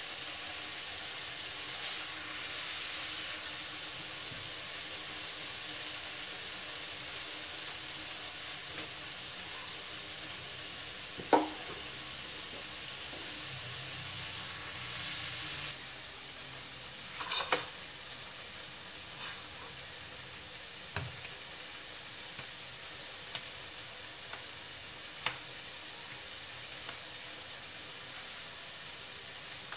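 Okra and onions frying in a steel kadhai on a gas stove, a steady sizzling hiss that drops in level about halfway through. A few sharp clinks and knocks of kitchen utensils come over it, the loudest just past the middle.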